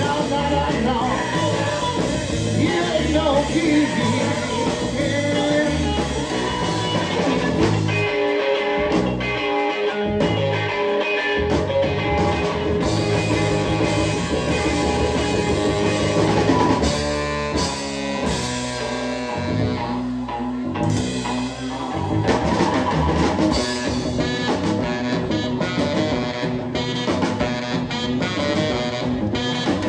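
Live rock and roll band playing an instrumental passage through the PA: guitars and drums, with a saxophone. The low end drops out for a few seconds about eight seconds in, then the full band comes back.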